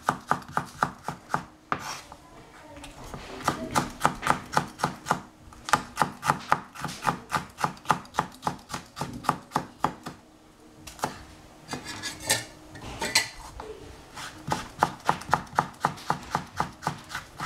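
Chef's knife thinly slicing a red bell pepper on a plastic cutting board: quick, even taps of the blade on the board, about five a second, in runs broken by a couple of short pauses.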